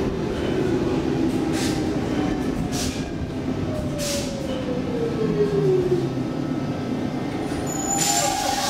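Stockholm metro C14 train braking into a station, heard from inside the car: steady running rumble with a whine that falls in pitch as the train slows. A loud burst of hiss comes near the end as it stops.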